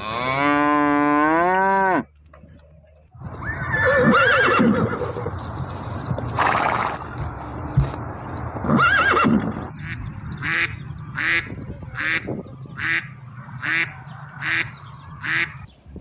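A cow moos once, its pitch rising then falling, then a horse whinnies with arching, gliding cries twice. From about ten seconds in a duck quacks in a steady run of short quacks, a little more than one a second.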